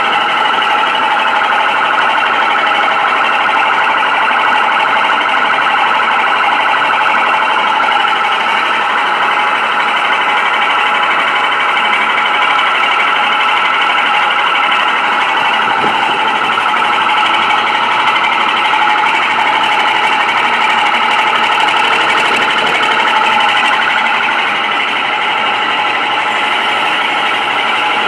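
Hammelmann high-pressure water pump running loud and steady, with a mechanical noise that appears when the high-pressure gun is in use and that the owner calls abnormal, since the pump normally runs without it.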